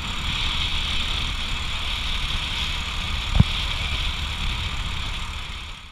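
Small motorcycle engine running steadily as the canopied motorcycle carries several riders along a road, with road and wind noise. One sharp knock about three and a half seconds in, and the sound fades out near the end.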